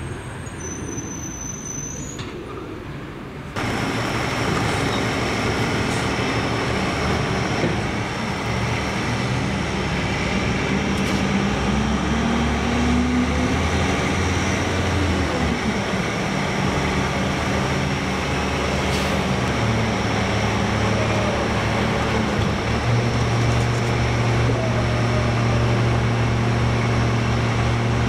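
Roll-off truck's diesel engine running while its hydraulic hoist tilts the bed and lowers a steel roll-off dumpster. The engine note rises about halfway through, then holds a steady hum with a low pulsing throb.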